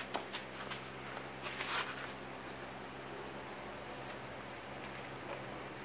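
Quiet, steady low hum of room tone with a few light clicks and a brief rustling scrape about a second and a half in, from handling the gasket and board. The drill is not running.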